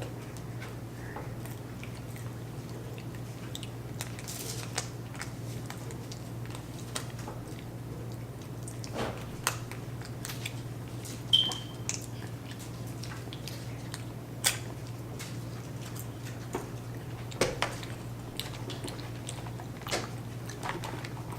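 Children chewing and biting McDonald's Happy Meal food, chicken nuggets, up close: scattered small clicks and crunches over a steady low hum.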